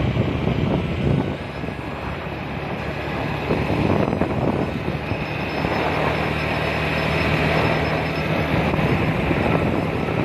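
Motorcycle engine running steadily at cruising speed, with wind rushing over the microphone on the moving bike.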